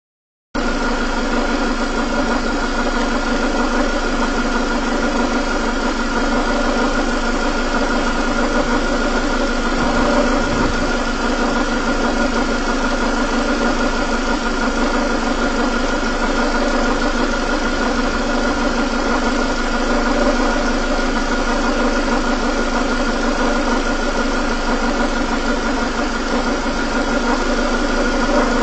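Engine idling steadily, with a steady whine running over it: an extraneous noise the owner wants identified.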